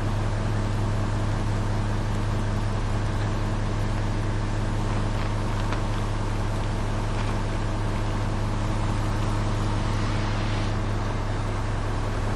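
Loaded concrete mixer truck's diesel engine idling with a steady low drone.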